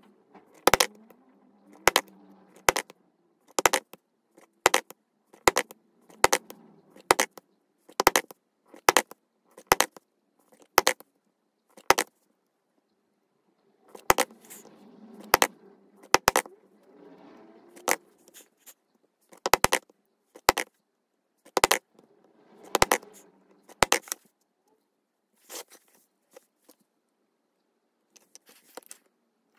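Mallet striking a stitching chisel to punch stitching holes through coonskin leather: sharp knocks about once a second, a short pause about twelve seconds in, then a second, less even run of strikes that stops a few seconds before the end.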